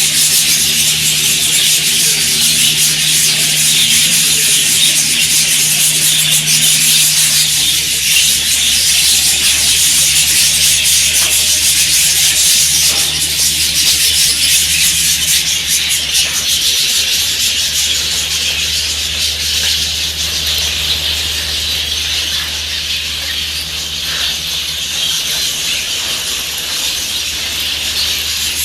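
A large flock of budgerigars chattering and chirping continuously, a dense high-pitched twittering, over a steady low hum that drops in pitch about seven seconds in.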